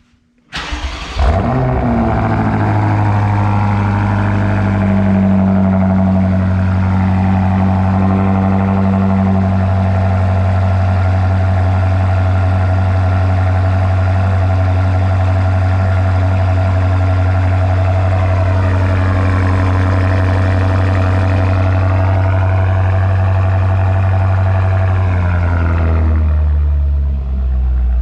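BMW F95 X5M's twin-turbo V8 starting through a newly fitted Dinan exhaust: it fires about half a second in with a loud flare, then settles into a steady, deep idle. Near the end its tone drops to a lower note.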